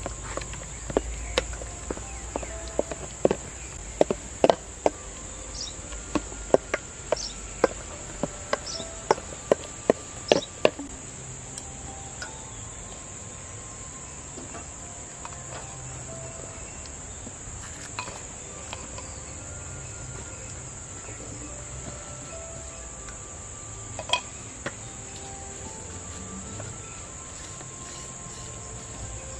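A wooden spoon knocking and scraping against a stainless steel bowl while mashing banana, with many sharp knocks in the first ten seconds or so and only a few later. A steady high insect buzz runs underneath.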